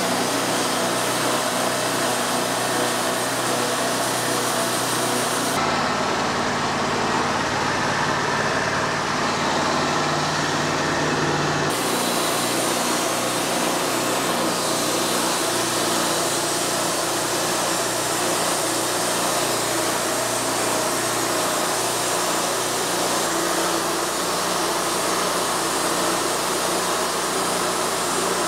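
Wood-Mizer LT40 portable bandsaw mill running steadily while sawing a log into slabs. About six seconds in the sound turns abruptly duller and lower, and it switches back just as abruptly about six seconds later.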